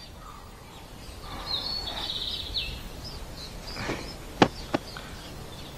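Quiet outdoor ambience with a brief high chirp, then the swish of a long robe sleeve being swept up and two sharp clicks in quick succession.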